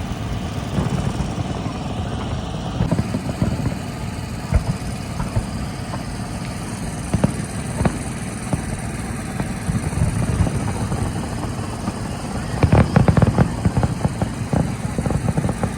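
Fireworks display going off: a continuous run of low booms and crackling bangs, with a denser flurry of bangs about thirteen seconds in.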